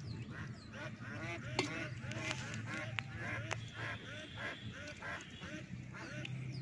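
Waterfowl calling, a long run of short honking calls about three a second, over a steady low hum with a few sharp clicks.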